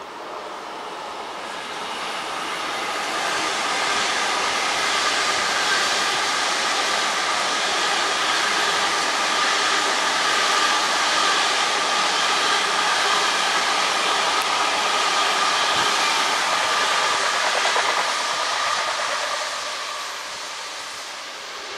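ICE high-speed electric train running past: a steady rolling noise of wheels on rail with a hum, building over the first few seconds and fading over the last few.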